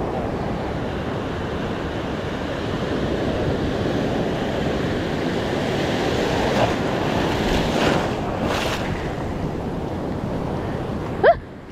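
Ocean surf washing and breaking around people wading in the shallows, with wind buffeting the microphone; a few louder wave surges come in the second half. Near the end the surf sound drops away abruptly.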